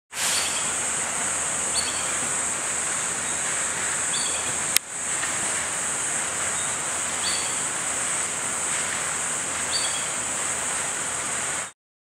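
Forest ambience: a steady high insect drone, with short bird notes about four times. A sharp click a little under five seconds in, and the sound cuts off suddenly near the end.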